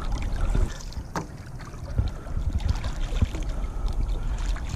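Water splashing and sloshing at the side of a boat as a sturgeon, held by the tail, thrashes at the surface, in irregular splashes.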